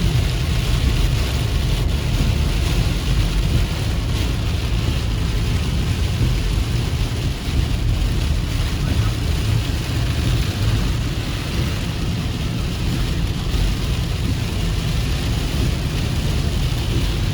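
Car driving through heavy rain: a steady low rumble of the vehicle on the road with an even hiss of rain and spray over it.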